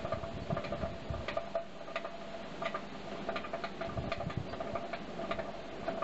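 Coal forge fire burning hard under an air blast, crackling with many irregular sharp pops and snaps as sparks fly, over a steady whine.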